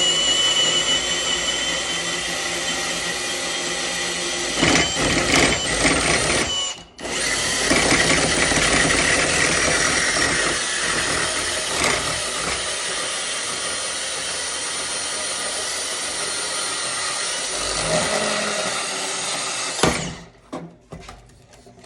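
Power tool running under load while cutting an exhaust pipe, with a steady high whine; it stops briefly about seven seconds in, starts again, and shuts off near the end.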